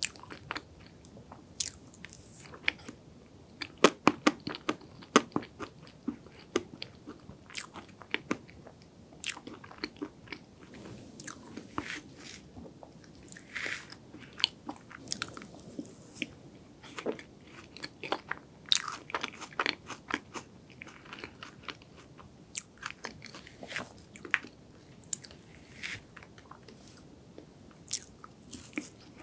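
Close-miked eating of chocolate strawberry cake: chewing and wet mouth smacks, heard as an irregular run of sharp clicks, several a second.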